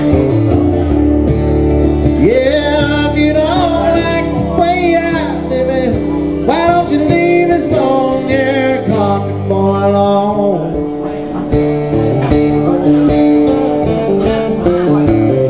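A man singing a country song to his own acoustic-electric guitar, amplified through a small PA. The guitar plays throughout, and long, wavering sung notes come in about two seconds in and fall away near the middle.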